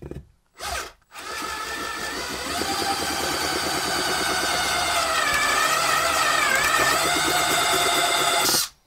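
Cordless drill boring a hole through the top of a Kevlar fuel tank. A short burst comes about half a second in, then a steady run from about a second in until it stops just before the end. Its pitch dips and wavers in the middle as the bit bites.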